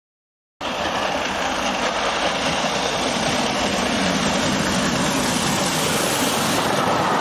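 Train sound effect: the steady, dense running noise of a train, cutting in abruptly about half a second in after complete silence.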